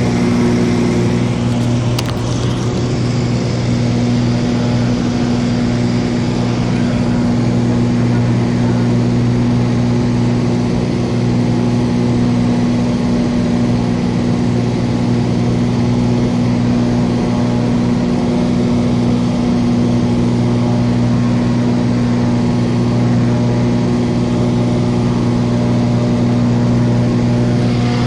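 Cessna light aircraft's engine and propeller droning steadily at an unchanging pitch.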